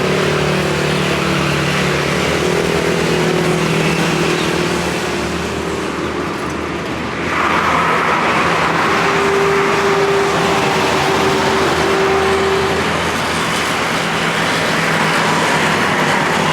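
Road traffic of cars and trucks, engines running as vehicles go by. About seven seconds in, the sound briefly eases, then a louder vehicle passes close, bringing a steady engine tone that fades out a few seconds later.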